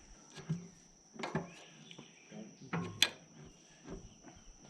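A steady high-pitched insect drone, with a few sharp knocks and clinks of work on the machine; the loudest is a single sharp clink about three seconds in.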